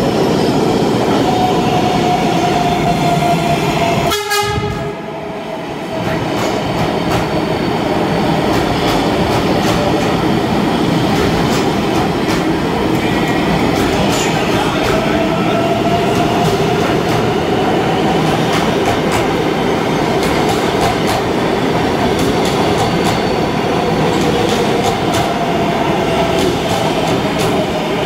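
R188 subway train running past a station platform without stopping: a steady loud rumble and clatter of wheels on rail, with a faint whine that slowly slides in pitch. The sound dips briefly about four seconds in.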